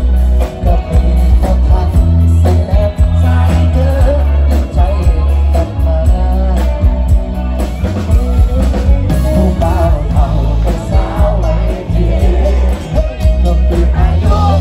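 A male singer singing live into a microphone over a full live band with electric guitar and drums, loud with a strong, steady bass.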